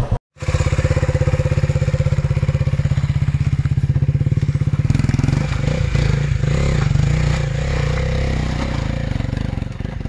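Motorcycle engine running while being ridden, a fast, even firing beat for the first half, then lower and more uneven from about five seconds in.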